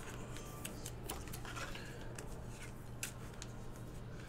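Faint clicks and rustles of glossy football trading cards being flipped through by hand, over a steady low hum.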